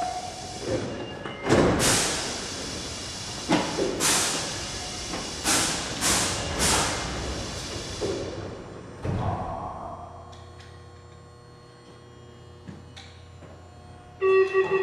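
Several loud metallic clanks and thuds, echoing around the underground platform, as a hand wheel chock is knocked off the rail under a Nagoya subway 2000 series train; a steady low hum underneath, and a short electronic tone near the end.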